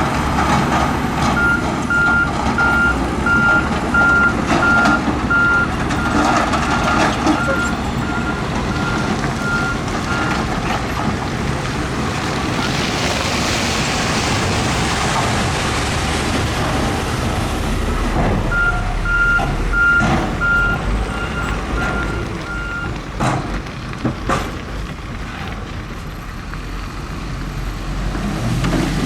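Diesel earthmoving machinery running steadily while a reversing alarm beeps in repeated pulses. The beeping carries on for about nine seconds, stops, and comes back for a few seconds later on. In between there is a hissing rush, and near the end there are a couple of sharp knocks.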